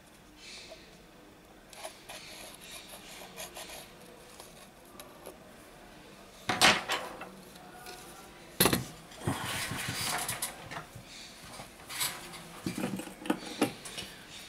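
Metal scraper blade scratching leftover glass and adhesive off a smartphone's frame, with a few sharp knocks of the phone or tools being handled, the loudest about six and a half and eight and a half seconds in.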